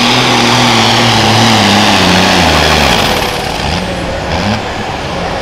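Turbocharged John Deere pulling tractor's diesel engine running hard under full load. About two to three seconds in its pitch falls away as the throttle comes off at the end of the pull, and it settles to a lower, quieter, uneven run.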